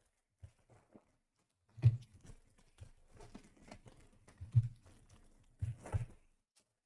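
Trading cards and foil pack wrappers handled by hand: light rustling and crinkling, with a few short knocks, the loudest about two seconds in and again around four and a half and six seconds in.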